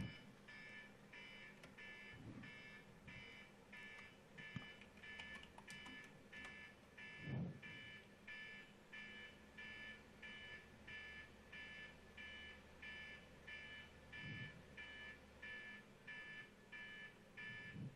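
Near silence: room tone with a faint, high electronic beeping that pulses about twice a second, and a soft low thump about seven seconds in.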